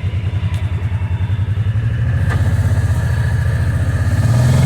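Kawasaki Teryx 800 side-by-side's V-twin engine running at low speed with a steady pulsing chug, revving up a little near the end.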